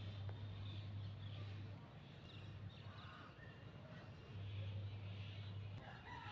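Faint outdoor ambience: scattered bird calls over a low steady hum that drops out for a couple of seconds in the middle.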